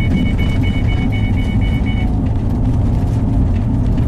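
Car cabin rumble of tyres and engine while driving over an old brick road. A rapid electronic beeping, several beeps a second, sounds over it and cuts off about two seconds in.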